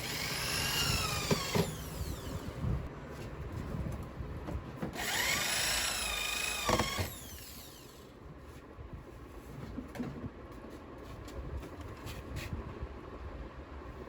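Electric power tool run in two short bursts, a few seconds apart. Each whine rises and then falls in pitch as the motor spins up and winds down, over steady workshop noise.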